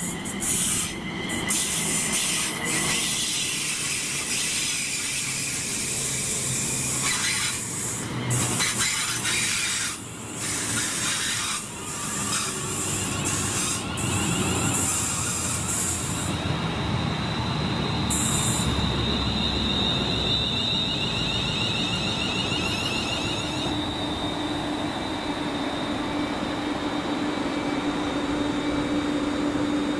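A train passing along the line with loud wheel-on-rail rumble. About two-thirds of the way through, a steady high whine and a lower hum join it.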